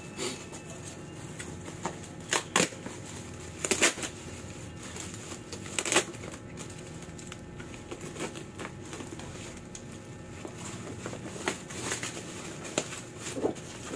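Plastic packaging bag crinkling and rustling as it is handled, with sharper crackles about two and a half, four and six seconds in, and lighter ones near the end.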